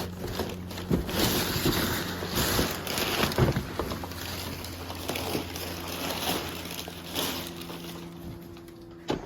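Irregular rustling, scraping and knocking of packaging being handled while a vacuum cleaner is taken out of its shipping box, over a steady low hum.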